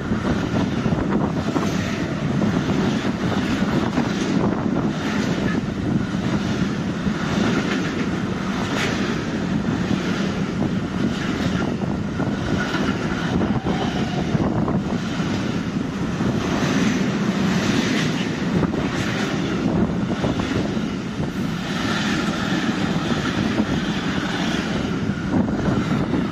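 A container freight train's wagons rolling past close by: a steady, loud rumble of steel wheels on the rails, broken by repeated short clatters.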